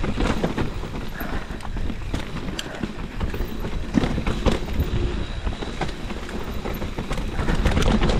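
Mountain bike riding downhill over a rocky trail: tyres rolling over stones, with frequent sharp knocks and rattles from the bike over a steady low rumble.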